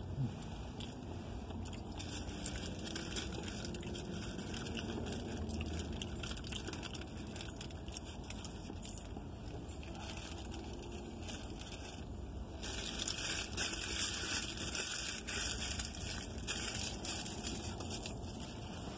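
Fast-food wrappers and a paper bag rustling and crinkling inside a car, in small crackly bursts that grow louder and busier about two-thirds of the way in.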